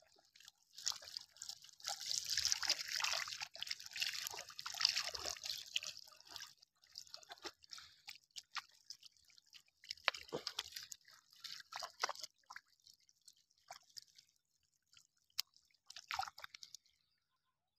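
Small fish and shrimp flapping and splashing in shallow muddy water inside a drained net, with a hand stirring through them. A dense run of wet flicks and splashes comes in the first few seconds, then scattered single splashes follow.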